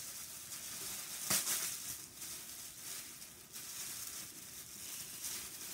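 Tissue paper rustling and crinkling as it is unwrapped, with one sharper crackle a little over a second in.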